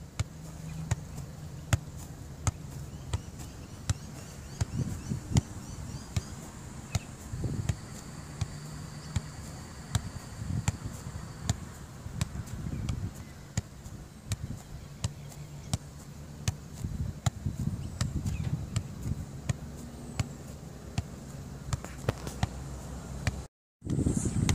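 A football being juggled: a steady run of sharp taps as the ball is kicked and kneed, about one to two touches a second.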